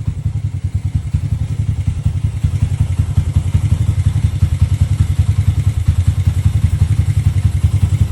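Honda Mega Pro's single-cylinder four-stroke engine running steadily through a gutted ("bedel") GL100-style KTM copy exhaust: a loud, even, low exhaust pulsing with no revving.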